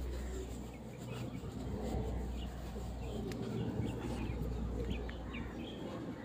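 Birds chirping here and there over a low steady hum.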